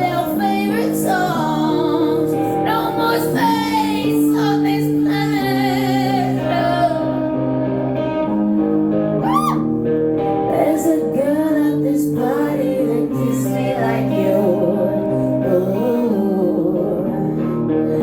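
Live stripped-down song: a woman singing wordless, held lines over sustained guitar chords, with a rising vocal slide about halfway through.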